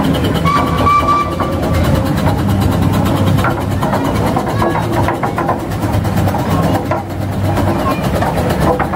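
Steam road rollers running past at walking pace: a steady low rumble with fast, even ticking and clatter from the engine's moving parts.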